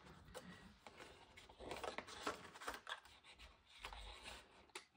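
Faint snips of small pointed detail scissors cutting through a paper label sheet, with light rustling as the sheet is handled.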